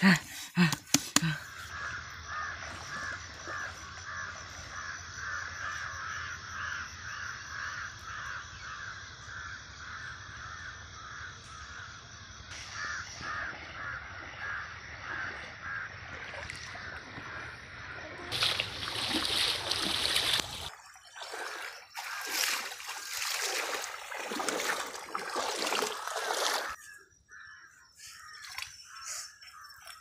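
A bird calling over and over, about twice a second, over a steady low rumble. From about eighteen seconds in come bursts of water splashing as water is scooped and thrown by hand in shallow water.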